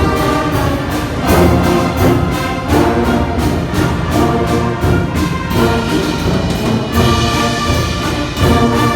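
Brass band playing a hymn in sustained full chords over a strong bass line, the chords changing about every second.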